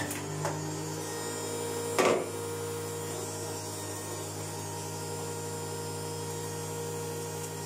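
Electric centrifugal juicer running steadily with an even motor hum while it juices beetroot. A sharp knock sounds about two seconds in.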